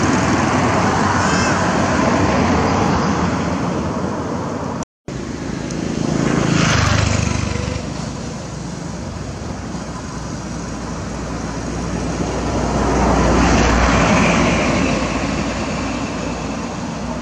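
Steady outdoor rumble of motor traffic, swelling twice as vehicles pass, with a brief break about five seconds in.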